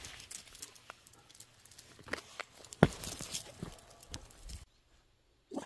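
Uneven footsteps and dogs' paws tapping and scuffling on a concrete path, with the sharpest tap about three seconds in. The sound drops out for under a second near the end.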